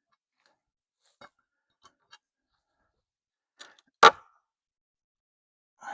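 A few faint small clicks, then one loud, sharp knock about four seconds in.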